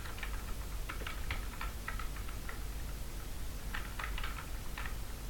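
Typing on a computer keyboard: light key clicks in short, irregular runs.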